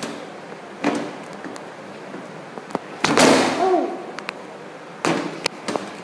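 Hand-pump spray bottle squirting water: three short hissing sprays about two seconds apart, the middle one the loudest and longest.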